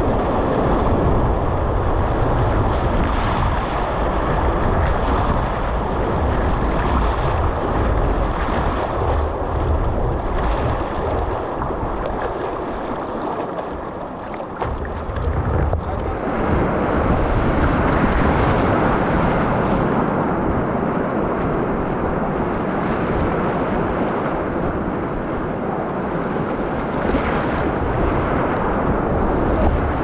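Whitewater rapids rushing and splashing around an inflatable kayak, with wind and spray buffeting the camera microphone. The rush eases for a few seconds near the middle, then returns fuller.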